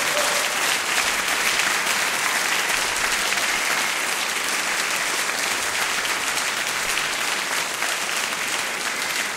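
A concert hall audience applauding steadily: a dense, even patter of many hands clapping.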